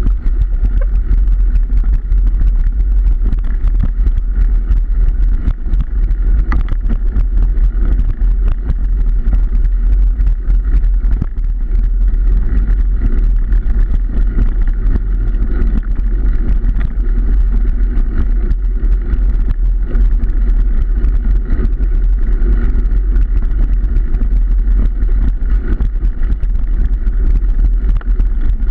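Car driving steadily along a road: continuous engine and tyre noise with a strong deep rumble, the level holding even throughout.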